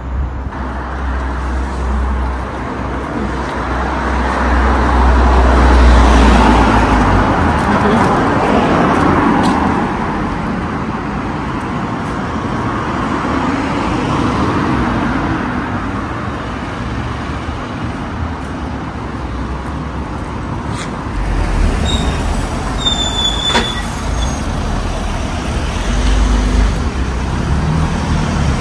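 Road traffic on a town street: vehicles pass, their noise swelling and fading, loudest about a quarter of the way through, with a deep rumble in the first several seconds. A brief high squeak sounds about four-fifths of the way through.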